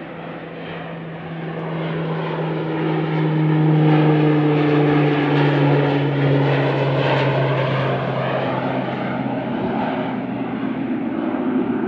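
Propeller airplane flying past, its engine drone swelling louder over the first few seconds. The pitch sags slightly as it goes by.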